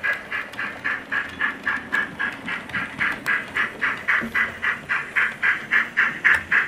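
Steam-locomotive chuffs at a steady pace of about four a second, played through the small speaker of a sound-fitted model pannier tank locomotive as it runs with its coaches, over a faint low running rumble.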